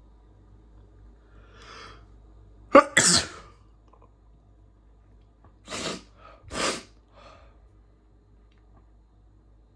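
A man sneezing: a soft in-breath, then one loud, sudden sneeze about three seconds in, followed a few seconds later by two shorter, quieter sneezes.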